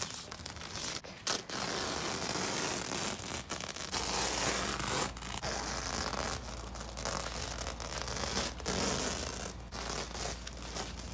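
Masking tape being peeled off a spray-painted picture, a long ripping tear that runs on with a few short breaks between pulls.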